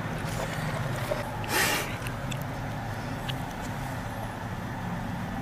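A car's engine idling, heard from inside the cabin as a steady low hum. There is a short burst of noise about a second and a half in.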